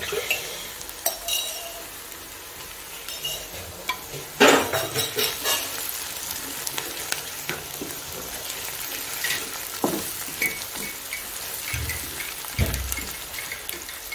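Onions frying in ghee in an aluminium pot, a steady sizzle, as ginger-garlic and green chilli paste is added and stirred in with a wooden spatula. Scattered knocks and scrapes of the spatula and spoon against the pot, the loudest about four seconds in.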